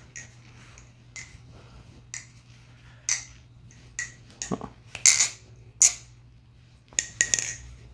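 MachineWise Mayrn Lite balisong being flipped: its handles clack against each other and the blade, about ten sharp clicks at an irregular pace, the loudest about five seconds in.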